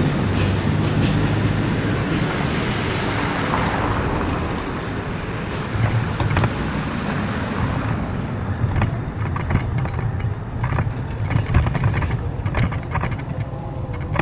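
Wind buffeting the microphone and a low rumble from riding a bicycle over brick paving. About halfway in the rush of wind eases and a run of sharp knocks and rattles from the bike takes over.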